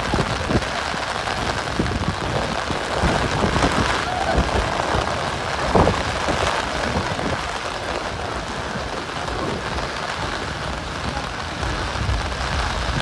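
Heavy rain falling and pattering densely on surfaces, with one sharper knock about six seconds in.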